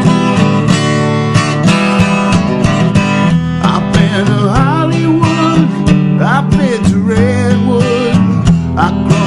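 Background country-style music of strummed acoustic guitar, with a wavering melody line joining about halfway through.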